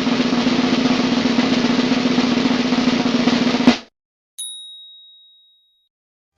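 Snare drum roll meme sound effect, ending in a sharp hit, followed after a short pause by a single high bell ding that fades out.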